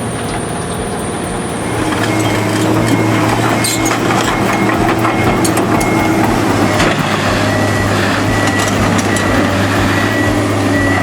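Heavy machinery engine running steadily, louder from about two seconds in, with a few scattered knocks and clanks.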